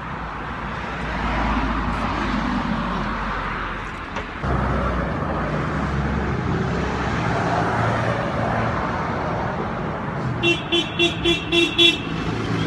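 Steady road-vehicle rumble, which jumps in level a little over four seconds in. Near the end come six short pitched beeps in quick succession.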